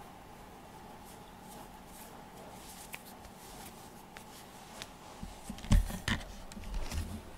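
Quiet room with a faint steady hum and a few light ticks. Then, about five seconds in, a short cluster of loud thumps and rustling as a cat's fur rubs and bumps against the camera's microphone.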